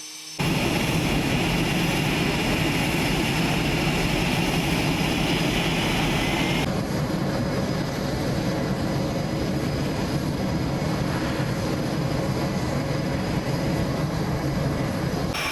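Steady jet engine noise from US Navy F/A-18 fighter jets. It starts abruptly just after the start and changes abruptly to a different mix about six and a half seconds in.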